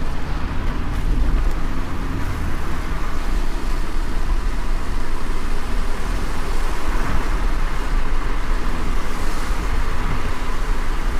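Car driving on a wet road in heavy rain: a steady low rumble under an even hiss of rain and tyre spray, swelling briefly about seven seconds in.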